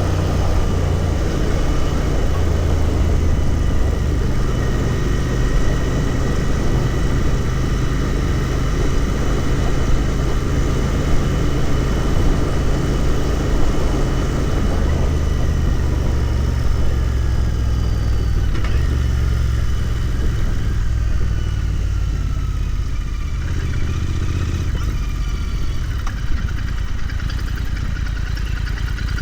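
Royal Enfield Continental GT 650's 648 cc parallel-twin engine running steadily under way, with wind rush over the microphone. The engine note eases off a little in the last third.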